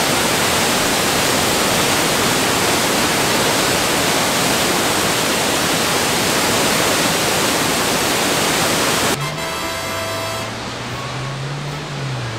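Loud, steady rush of water from Nunobiki Falls, a tall waterfall falling in tiers. About nine seconds in it cuts off abruptly and quieter background music takes over.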